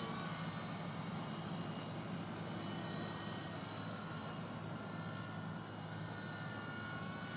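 Double Horse 9116 RC helicopter in flight: a steady whine from its small electric motors with the buzz of its spinning rotors.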